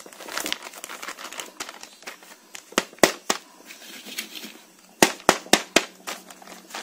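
Plastic bag of rice flour crinkling as it is poured out into a bowl, with sharp cracks as the bag is shaken out: three close together about three seconds in, then four in quick succession about five seconds in.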